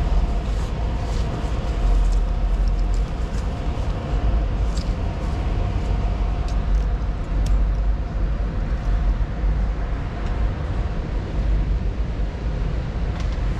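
Steady low rumble of a large store's background noise, with a few light clicks scattered through it.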